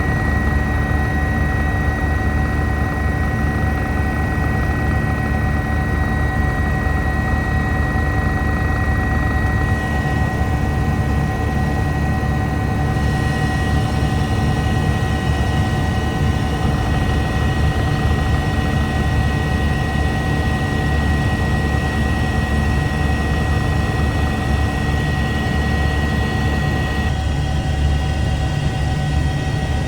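Eurocopter EC145 twin-turbine helicopter in flight: steady rotor and engine noise with a constant high-pitched whine over it. The character of the noise shifts abruptly about ten, thirteen and twenty-seven seconds in.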